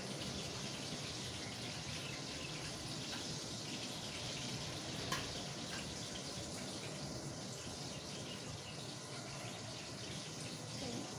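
Spring rolls sizzling steadily as they shallow-fry in hot oil in a pan. A single sharp click of a utensil against the pan about five seconds in.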